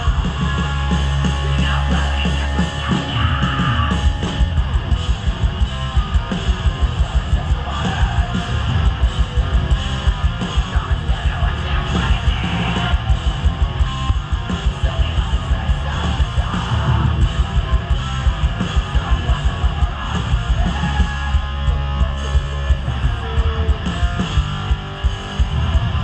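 Heavy band playing live at full volume: distorted guitars, fast pounding drums and shouted vocals.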